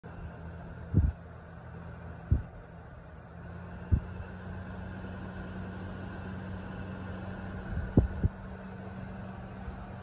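Vornado Transom window fan running steadily: an even rush of air over a low motor hum. Five dull low thumps, about 1, 2.3 and 4 seconds in and twice close together near 8 seconds, stand out above it.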